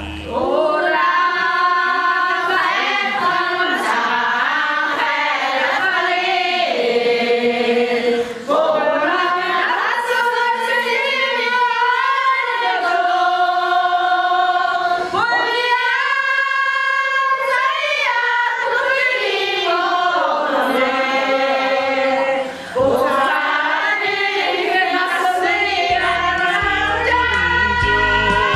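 Voices singing a song without accompaniment, in long held notes with short pauses between phrases. A low accompaniment comes in near the end.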